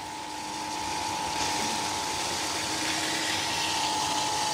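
BWD5-40 stainless steel variable-speed booster pump running with a steady whine, holding 3 bar. It gets louder over the first second or so, with more rushing hiss, as the outlet valve is opened and the pump speeds up to meet the higher flow.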